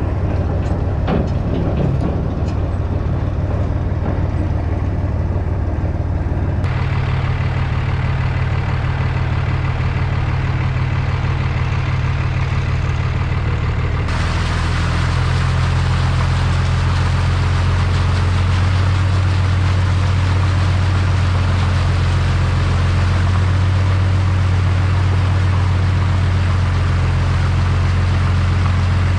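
A vehicle engine runs steadily while driving through floodwater. About halfway in, a loud rushing hiss of water joins it and carries on.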